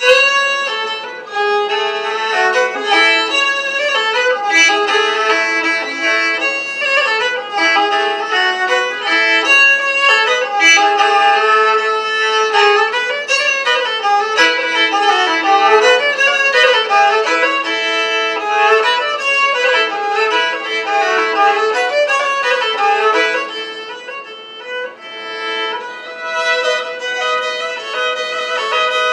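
Solo fiddle, bowed, playing a melody. It dips softer for a moment about three-quarters of the way through, then carries on.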